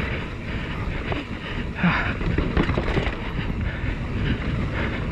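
Mountain bike descending a dirt trail at speed: a continuous rumble of knobby tyres on dirt and dry leaves, with irregular clicks and knocks as the bike rattles over bumps.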